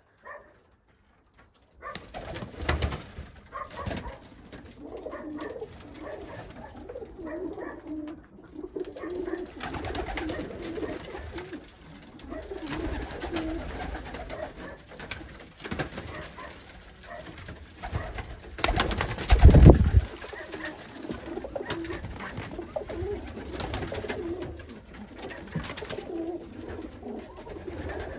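Domestic pigeons cooing steadily in a small loft, starting about two seconds in, with scattered knocks and a loud rush of noise about two-thirds of the way through.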